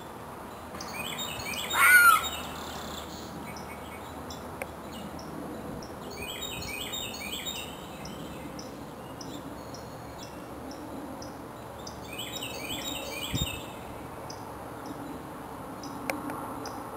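Woodland birds calling. A loud gliding call about two seconds in is the loudest sound; two runs of quick repeated notes come later, and a faint regular high chirping goes on under them. A short low thump falls near the end.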